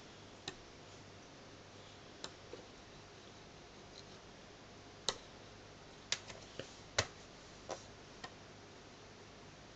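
Plastic pen tapping and clicking against the screen of a child's magnetic drawing board: about ten short, irregular taps over a faint room hiss, more of them in the second half.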